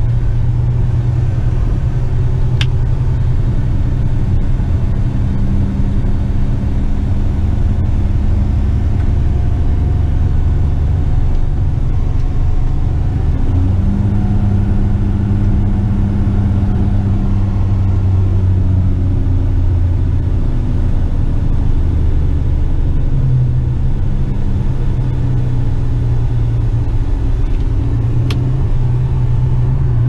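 Western Star dump truck's diesel engine heard from inside the cab, running steadily as the fully laden truck drives, its low note shifting a few times. Two brief high clicks, one early and one near the end.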